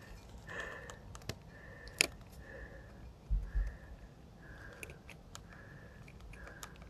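Small steel pick scratching and digging old resin out of a turquoise chip inlay: faint scraping strokes about once a second, with a few sharp clicks and a couple of dull bumps a little past the middle.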